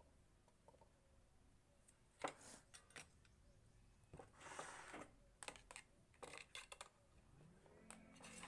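Faint scattered clicks and a short scrape of wires and a small amplifier circuit board being handled and connected. A faint low hum starts near the end.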